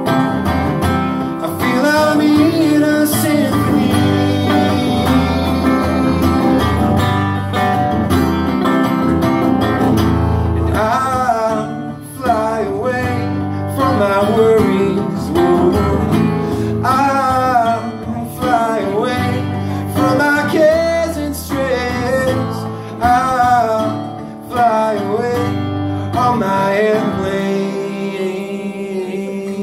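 Two guitars, an acoustic and an acoustic-electric, strumming steady chords in a live instrumental break, with a wavering, bending lead melody line over them from about ten seconds in.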